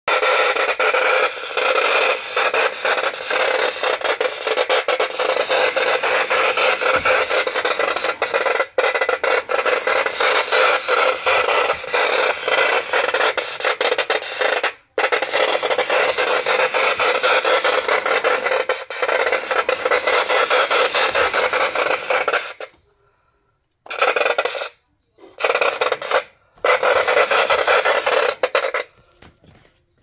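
Sound unit of an Aristocraft Santa Fe slopeback tender playing steam locomotive effects through its small speaker: a loud, continuous rasping hiss full of fine rapid pulses. It drops out briefly about halfway, then in the last several seconds stops and starts in short bursts.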